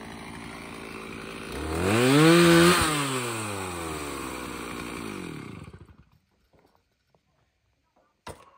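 Two-stroke chainsaw idling, revved up once about two seconds in, then shut off and winding down, its pitch falling steadily until it stops about six seconds in. A single sharp knock near the end.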